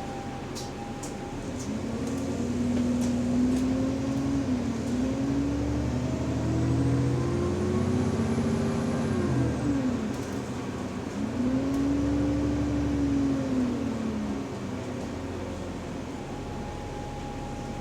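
A bus's drivetrain heard from inside the cabin, pulling away and slowing twice: a pitched whine rises with road speed, dips briefly about five seconds in, falls away around ten seconds, then rises and falls again, over the engine's rumble. The whine is the uploader's subtle, weird differential noise.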